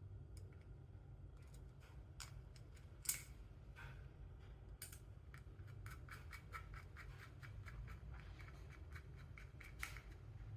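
Small metal fittings being handled and screwed together by hand on an acrylic stand. There is a sharp click about three seconds in, then a run of quick light clicks, about four a second, as a part is turned on its thread.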